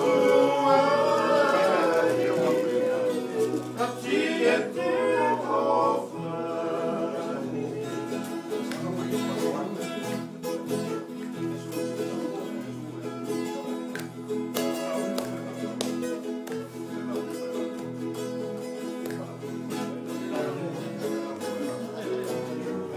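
Tongan string-band music: acoustic guitars strumming a steady rhythm. Voices rise over the strings for the first six seconds or so, then fade, leaving the guitars.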